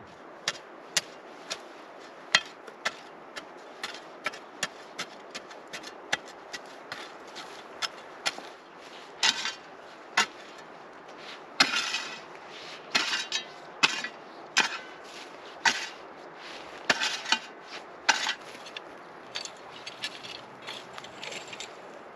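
A spade's metal blade striking and scraping through freshly dug, clumpy soil. Sharp separate knocks come about two a second at first, then from about halfway come louder clusters of strikes with scraping between them, thinning out near the end.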